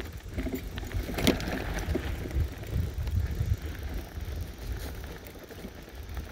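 Electric bike riding over a rough sandy dirt track: a low, uneven rumble of tyres and wind on the microphone, with one sharp knock about a second in.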